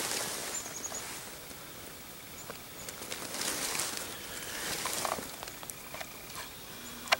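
Dry meadow grass and clothing rustling as someone shifts and handles gear, in a few soft swells with scattered small clicks.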